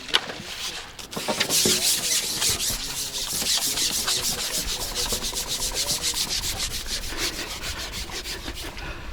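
Rapid rhythmic rasping rub, several strokes a second, starting about a second and a half in and going on steadily.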